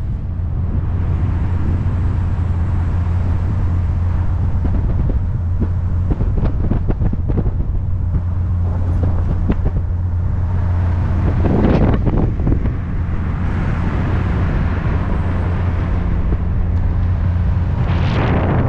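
Triumph TR5's 2.5-litre straight-six engine pulling the open car along at a steady speed, its low drone even throughout. Wind rushes over the open cockpit and microphone, with louder gusts about twelve seconds in and again near the end.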